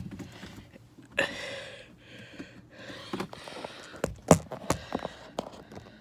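Phone being handled and set in place inside a car: a short rustle about a second in, then a few sharp knocks and clicks, the loudest about four seconds in.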